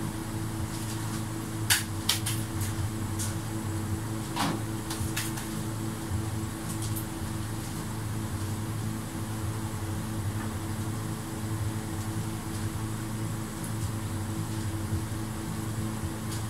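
Steady hum of a spray booth's ventilation fan, with a few sharp clicks and knocks about two seconds and four to five seconds in.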